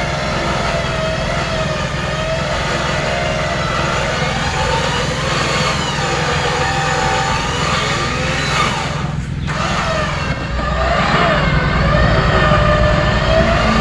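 Off-road vehicle engine running, with a high whine that rises and falls in pitch over it; the engine gets louder about ten seconds in.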